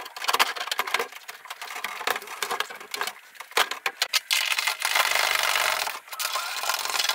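Metallic knocks and clatter as an aluminium ute-tray headboard and hand tools are handled while the headboard is fitted back on, followed by a steady rasp from about halfway through, with a short break near the end.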